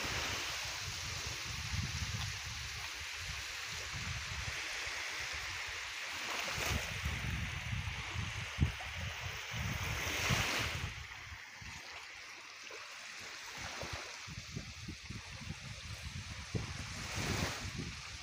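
Wind buffeting the microphone with uneven low gusts, over a steady hiss of wind and small waves on the shore; the hiss eases for a few seconds past the middle.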